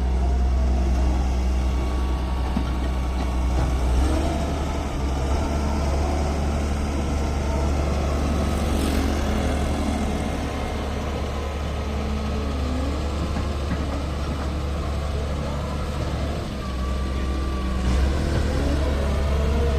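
Excavator's diesel engine running under work, a steady low drone with thinner whining tones that rise and fall, and changes in engine note a few times.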